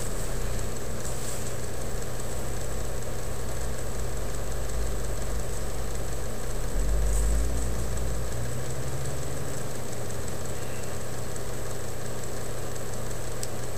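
Steady low mechanical hum, like an engine idling, with a few faint small clicks.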